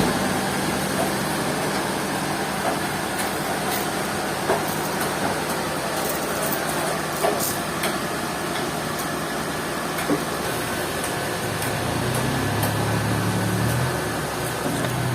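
Sawmill machinery running steadily, with a low motor drone that shifts in pitch near the end and a few short sharp knocks.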